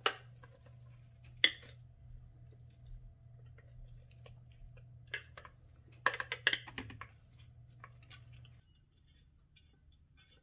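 Plastic spatula scraping and knocking against a stainless-steel Thermomix mixing bowl as sticky rice is scooped out into a cloth-lined steamer basket. There are sharp clicks at the start, again about a second and a half in, and a cluster around six to seven seconds in, over a low steady hum that cuts off near the end.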